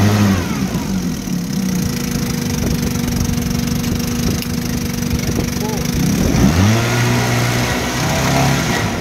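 1960 Evinrude Fastwin 18 hp two-cylinder two-stroke outboard running in a test barrel in forward gear, its propeller churning the water. The revs drop away at the start, rise again about six seconds in, and ease back near the end.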